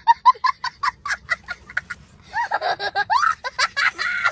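A young boy laughing hard: a quick run of short, high cackles, then after a brief pause about two seconds in, a longer stretch of squealing laughter that slides up and down in pitch.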